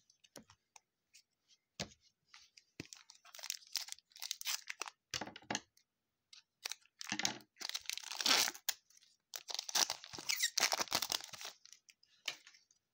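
A plastic-foil trading-card pack (2020 Panini Prestige football) being torn open by hand: irregular crinkly ripping and rustling of the wrapper, in several bursts that are loudest in the second half, with a few light clicks.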